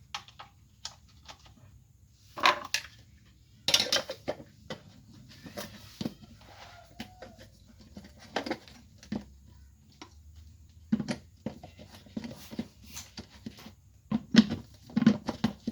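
Scattered knocks and clatters as an electric meat chopper is handled and set up, its bowl and lid being knocked and shifted. Several sharp knocks come about two and four seconds in, and a cluster comes near the end. The motor is not running.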